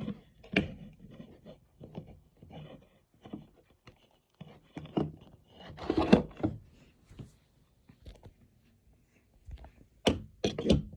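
Quiet, irregular handling noises: soft thunks, scrapes and rustles as objects are picked up and moved. They are loudest about six seconds in, with a few sharper knocks near the end.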